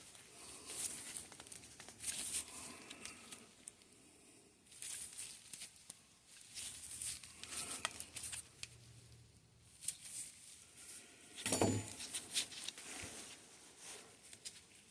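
Intermittent rustling and light clicking of hands handling small suspension fork parts, with one sharper knock about twelve seconds in.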